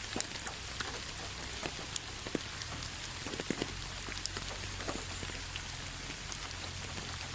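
Steady rain with individual drops ticking and tapping irregularly on a surface.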